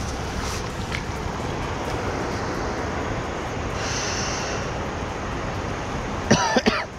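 Steady rushing of river water over a rocky weir. A short, loud cry comes near the end.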